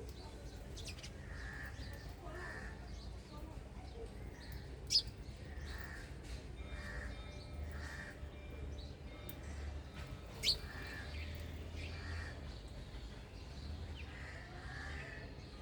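Wild birds calling: many short repeated calls, with two sharp high chirps, one about five seconds in and one about ten and a half seconds in, over a steady low rumble.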